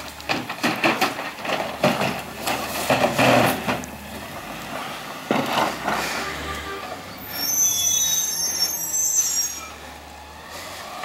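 Garbage truck with a McNeilus rear-loader body being loaded: a run of clanks and bangs as trash goes into the hopper, with the engine running underneath. Near the end comes a high squeal lasting about two seconds.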